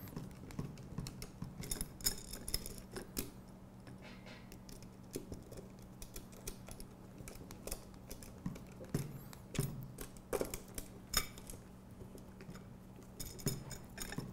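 Hex screwdriver tightening screws into a bracket on aluminium C-channel: irregular small metal clicks and ticks, a few with a brief metallic ring.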